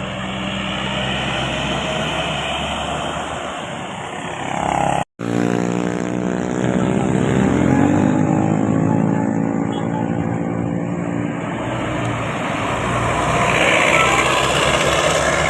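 Large buses driving past with their engines running, cut off suddenly about five seconds in and picking up again in a second stretch of traffic sound.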